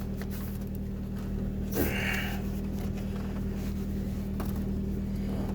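1998 Ford Escort ZX2's engine idling steadily, with a brief higher-pitched sound about two seconds in.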